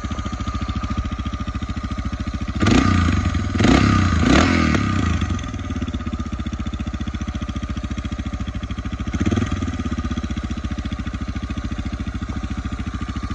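Suzuki Freewind XF650 single-cylinder four-stroke idling through a carbon-fibre silencer, with a steady pulsing idle. Three quick throttle blips come a few seconds in, and a lighter one follows near the middle before it settles back to idle.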